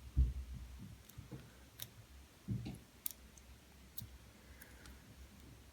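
Lock pick working the pins inside an American 1100 padlock: faint, scattered sharp metallic clicks, with a couple of dull knocks from handling the lock.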